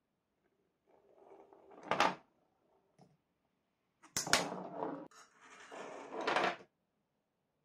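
Painted bar magnets sliding across a wooden board and clacking together as they snap into a row. A scraping slide builds to a sharp clack about two seconds in, a double click comes about four seconds in, and a longer slide ends in another loud clack near the end.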